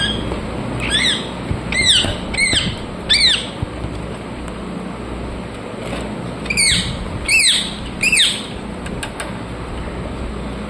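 Indian ringneck parrots (rose-ringed parakeets) calling with short squawks, each rising then falling in pitch. Four come in the first few seconds, then three more after a pause, over a steady low hum.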